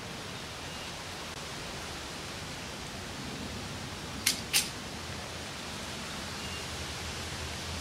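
Two sharp clicks about a third of a second apart, a little past the middle, over a steady hiss.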